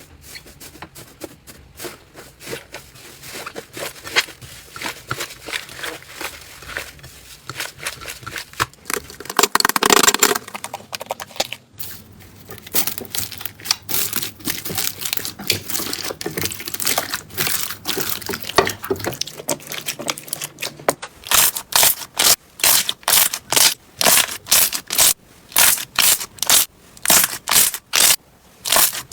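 Slime being squeezed and poked by hand, giving close-up crackling and clicking. About ten seconds in there is a louder squelch, and near the end a run of loud crunchy crackles comes about twice a second as the slime is pressed rhythmically.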